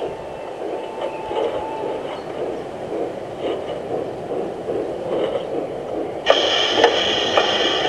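LGB G-scale model train running along the garden track: a steady rolling rumble with faint rail clicks and a thin whine in the first couple of seconds. About six seconds in, a louder sound with steady high tones and a regular beat about twice a second cuts in over it.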